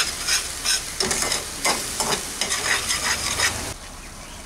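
Spatula scraping and stirring a masala paste of onion, ginger-garlic and tomato as it fries in oil in a metal kadai, in quick repeated strokes over a steady sizzle. The masala is being fried down (koshano) in the oil. Near the end the stirring stops and only a quieter sizzle of the bubbling paste remains.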